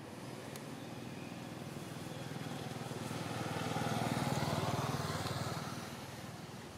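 A motor vehicle driving past, its engine sound growing louder to a peak a little past the middle and then fading away.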